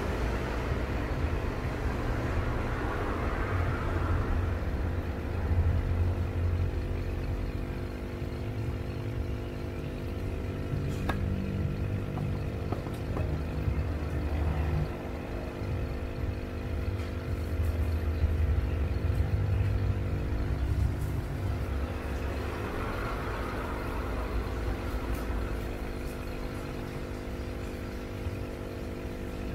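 A steady machine hum with an uneven low rumble underneath.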